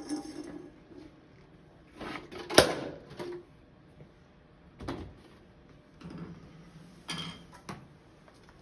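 A short scrape as the wooden dowel is pulled from the perforated plastic sewer pipe, then one loud bang about two and a half seconds in as the weight drops a metre down the pipe and crushes an aluminium drink can. Softer knocks and clatter follow as the pipe is lifted off and the weight and crushed can are picked up.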